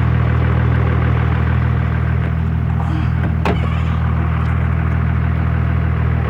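Pickup truck engine idling with a steady low hum, with a single sharp click about three and a half seconds in.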